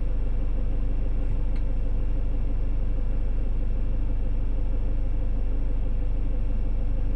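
Peugeot Boxer camper van's engine running steadily, a low even hum heard from inside the cab.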